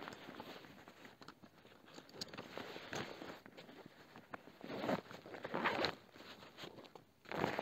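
Irregular crunching and rustling from someone moving about and handling gear. Several louder crunchy swishes come about three seconds in, twice around five to six seconds, and again just before the end.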